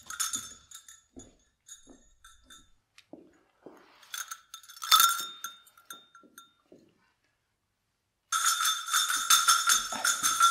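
A small metal bell clinking now and then, once louder about five seconds in. About eight seconds in it breaks into a fast, continuous jingle, as when a bell is shaken hard.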